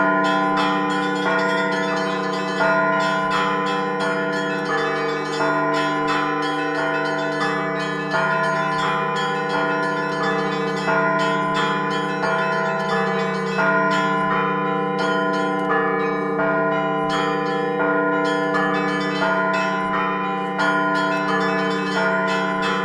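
Russian Orthodox church bells played by a bell ringer in a concert peal: a fast, dense pattern of small bells rings over sustained deeper bell tones, with a heavier accent stroke about every two and a half to three seconds.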